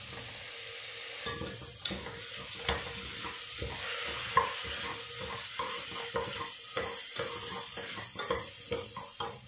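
Rinsed rice sizzling in hot ghee with roasted moong dal and coconut in a pressure cooker, while a spatula stirs and scrapes the pot with many short strokes.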